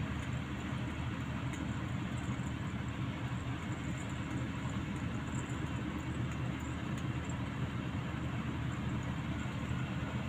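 Truck driving at road speed, heard from inside the cab: a steady engine drone mixed with road and wind noise, heaviest in the low end.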